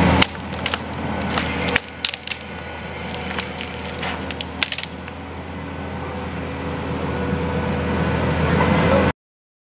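Kubota compact track loader's diesel engine running while its grapple crushes into pine limbs, the branches cracking and snapping in a string of sharp cracks over the first five seconds. The engine then grows gradually louder, and the sound cuts off abruptly near the end.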